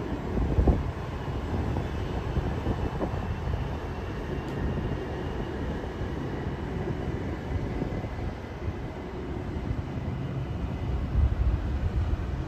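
Trenitalia Rock double-deck electric train pulling away along the platform: a steady low rumble of its running gear with a faint high whine, and a thump about a second in.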